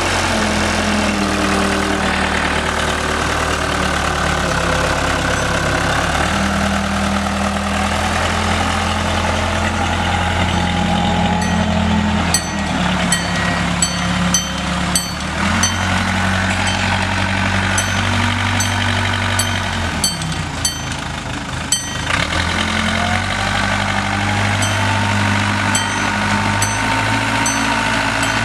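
A 1977 Case 580C-CK tractor's four-cylinder diesel engine running, its speed stepping up and down several times. Sharp clicks come and go through the middle and near the end.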